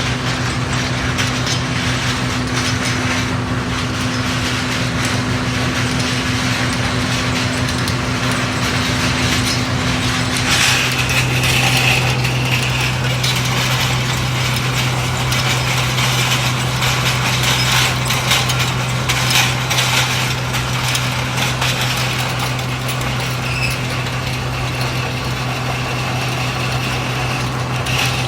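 Motor-driven stirrer of a box-type coffee dryer running: a steady motor hum over a constant rushing, rattling noise with scattered clicks and knocks. The hum changes tone about ten seconds in.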